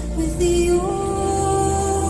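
Slow Celtic-style music: long held notes over a steady low drone, the melody sliding up to a higher held note just under a second in.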